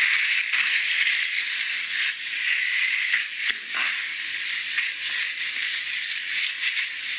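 Plastic sheet rustling and crinkling on a work surface as semolina dough is pressed and shaped on it, over a steady hiss.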